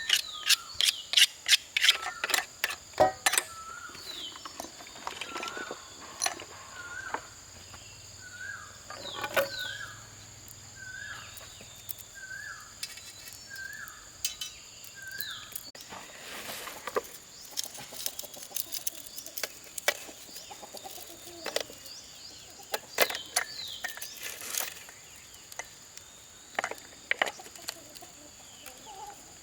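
A bird repeats a short rising-and-falling call about once a second over a steady high insect drone. Sharp knocks come in clusters at the start and again later.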